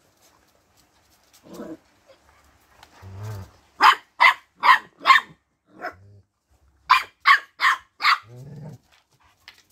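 Puppies playing rough with an adult dog: short growls, then two quick runs of four sharp, high barks about two and a half a second, ending in another growl.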